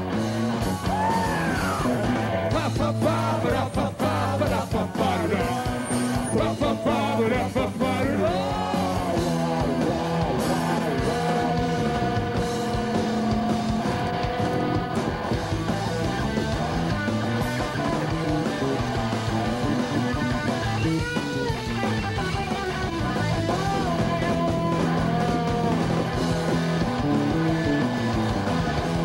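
Rock band playing live: electric guitars, bass and drums, with a singer's vocals coming and going over them.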